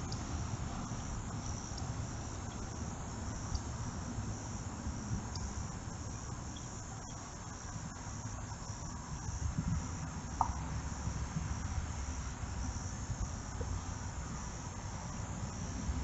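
Steady high-pitched chorus of insects in summer woodland, over a low background rumble.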